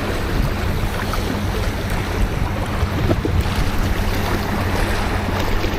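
Steady wind noise buffeting the microphone: a low, even rumble with a hiss above it.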